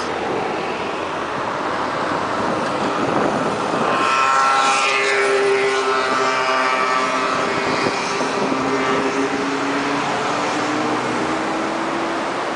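Steady rushing background noise with an engine sound rising out of it about four seconds in. Its whine slides down in pitch, then settles into a low drone that fades near the end.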